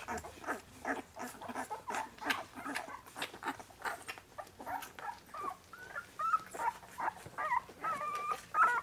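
Week-old Cane Corso puppies suckling, with quick wet smacking clicks several times a second, then high, wavering squeaks and whimpers from the puppies about five seconds in.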